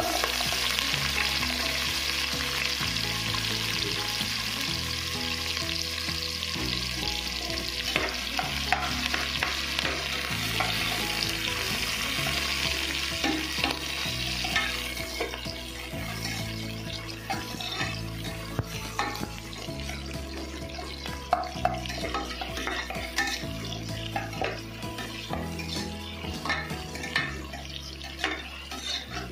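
Onions sizzling as they hit hot oil in a pressure cooker, the sizzle loudest at first and thinning out after about fifteen seconds. A metal spoon clinks and scrapes against the pot as they are stirred.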